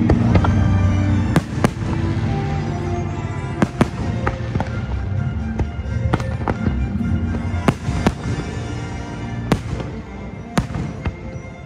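Fireworks exploding in a string of sharp bangs, roughly one every second or so, over the show's music soundtrack playing loud through speakers. The music's deep bass eases off after the first couple of seconds.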